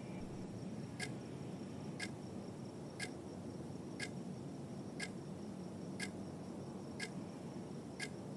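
A clock ticking once a second, eight even ticks, over a steady low hiss and a faint high whine.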